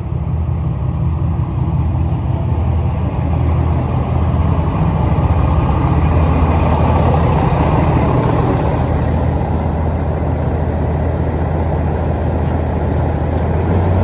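An engine running steadily with a low hum, its noisier upper sound swelling for a few seconds around the middle and then easing back.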